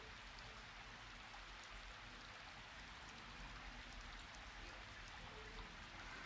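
Near silence: a faint, steady hiss with a few light ticks in it.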